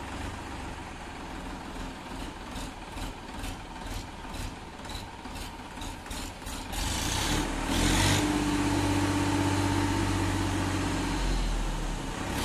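Tractor engine running with a light ticking about two a second, then picking up about seven seconds in to drive the crane's hydraulics. It runs under load with a steady hum while the hydraulic cylinder extends to raise the mini crane's boom, easing off near the end.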